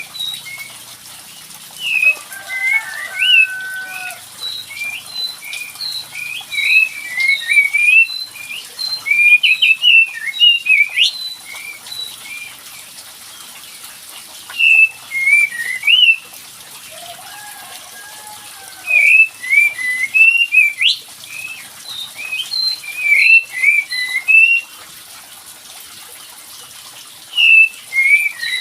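Kapas tembak songbird song played as a lure call: bursts of rapid, chattering chirps separated by short pauses, with a couple of lower, slower whistled phrases. It is used to provoke a reluctant kapas tembak into singing back.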